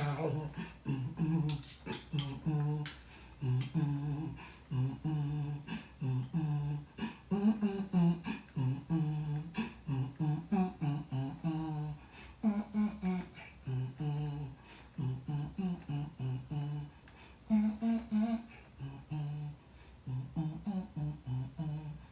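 A person's voice making a long run of short, wordless hummed vocal sounds, about two a second, the pitch stepping between a few notes: improvised vocal sound practice.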